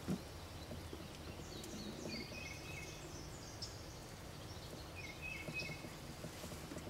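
Small birds chirping in short runs of quick high notes over a steady outdoor background hiss, with one brief knock right at the start.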